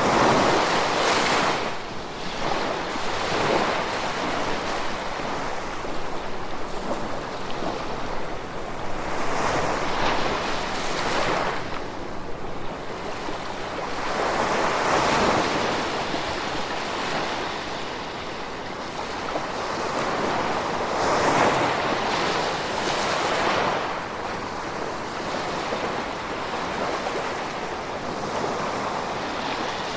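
Gentle sea waves breaking and washing onto a shore. The surf rises and falls in swells every few seconds.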